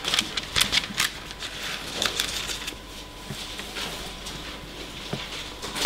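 Bible pages being leafed through on a lectern close to a microphone: a run of quick papery rustles and flicks, busiest in the first second and again about two seconds in, then softer.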